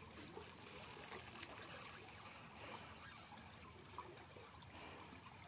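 Faint trickling and dripping of water running off a bamboo-framed lift net as it is hauled up out of the pond.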